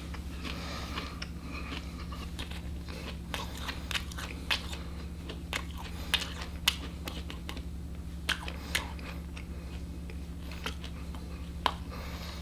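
Someone chewing a mouthful of dried, seasoned mealworm larvae (Larvets), with irregular small crisp crunches, close to the microphone.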